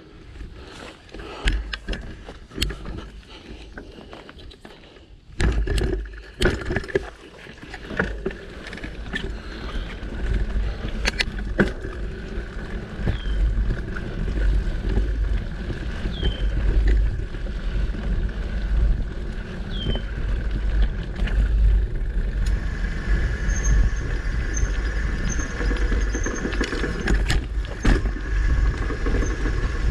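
Mountain bike ridden along a dirt singletrack: tyres on packed dirt and a low rumble of air buffeting the camera microphone, with scattered clicks and knocks as the bike rattles over bumps. A bird calls a short falling note three times in the middle, and a run of brief high notes comes near the end.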